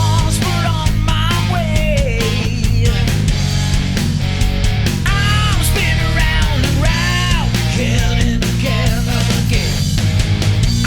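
Loud rock music: a lead melody with gliding notes over heavy bass and a steady driving beat.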